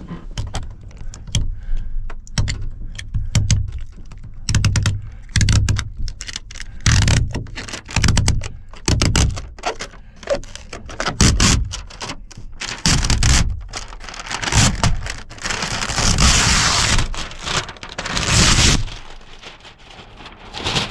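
Fingers picking and scraping at the edge of window tint film on a truck topper's side window, a quick run of clicks, knocks and scrapes. Late on comes a few seconds of steady crackling rip as the film is pulled away from the glass.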